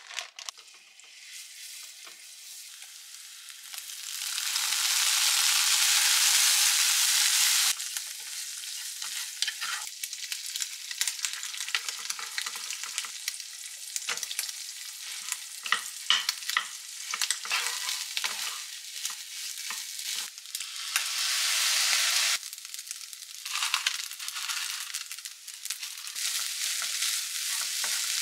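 Food sizzling in oil in a frying pan, loudest in a steady stretch that cuts off sharply about eight seconds in and again a little after twenty seconds. In between, a wooden spatula clacks and scrapes against the pan as fried rice with egg and ham is stirred.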